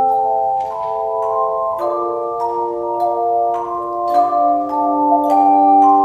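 A handbell choir ringing a slow hymn tune in chords. New chords are struck every second or so, and the bells ring on and overlap.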